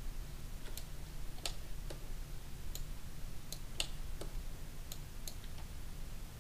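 Light clicks of a computer mouse and keyboard, about ten at uneven intervals, over a low steady hum.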